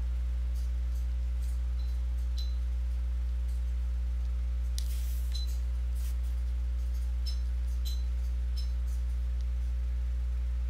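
Steady low electrical hum, with a scattering of faint light clicks and small clinks and a short rustle about five seconds in.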